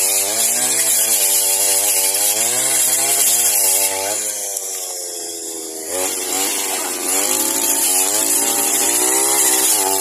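Two-stroke brush cutter engine running at high revs under load, cutting into wood with a hissing cut noise. Its pitch wavers with the load and eases off for a couple of seconds in the middle before it revs up and cuts again.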